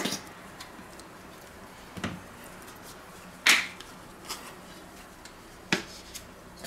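Plastic condiment squeeze bottles being handled: ketchup squeezed out of a squeeze bottle, then a mayonnaise bottle's flip-top cap snapped open, heard as a handful of short, separate squirting and clicking sounds. A sharp click comes about two-thirds of the way in.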